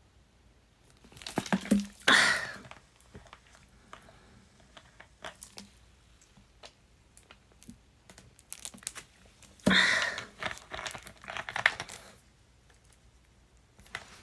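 Crinkling and rustling handling noise in two spells, one near the start and one about ten seconds in, with scattered sharp clicks between them.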